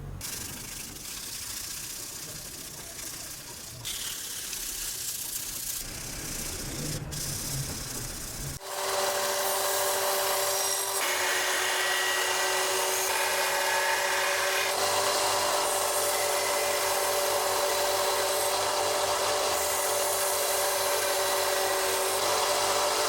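Quiet hand-tool work with rubbing and scraping in short segments, then, about a third of the way in, an electric power tool starts up and runs steadily with a constant hum under a rough rubbing noise as it works the material.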